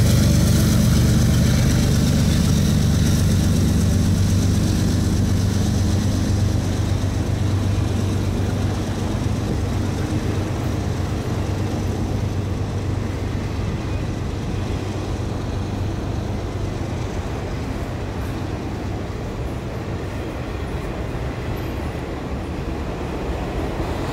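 Auto rack cars of a Norfolk Southern freight train rolling past: a steady rumbling clatter of wheels on rail, with a low hum in the first several seconds that fades away, the whole sound slowly getting quieter.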